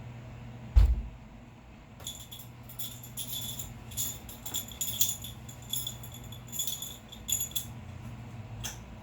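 A single heavy thud about a second in, then several seconds of light metallic jingling and clinking, like keys shaken, during a double-kettlebell long cycle set. A low steady hum runs underneath.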